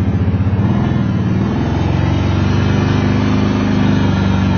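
ATV (four-wheeler) engine running under throttle as the quad rides along.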